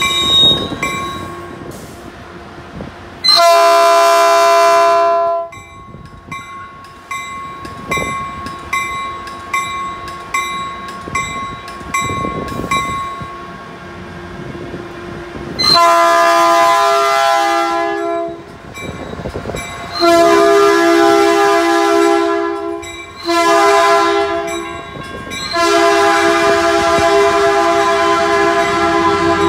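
A Caltrain locomotive's air horn gives one long blast, then from about sixteen seconds in sounds the long, long, short, long grade-crossing signal as the train leaves the station. Between the blasts a crossing bell dings steadily over the rumble of the train rolling by.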